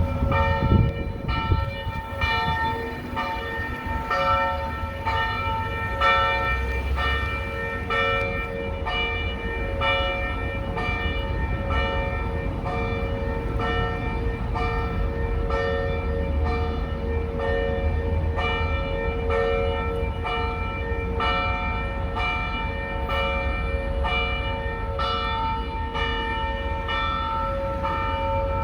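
A church bell ringing in steady, evenly spaced strokes, each stroke ringing on into the next.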